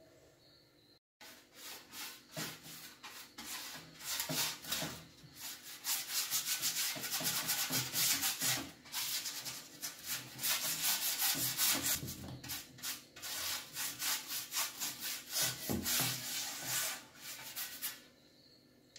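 Rapid back-and-forth rubbing strokes of a brush over a dark metal baking tray as it is greased with fat. They start about a second in and stop shortly before the end.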